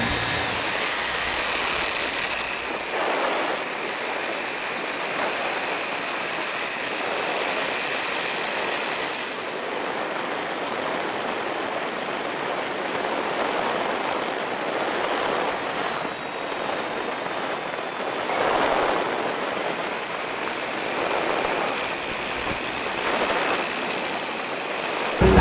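Steady rushing hiss from the onboard audio of an FPV model airplane in flight, swelling and easing every few seconds. A faint thin high whine fades out about ten seconds in.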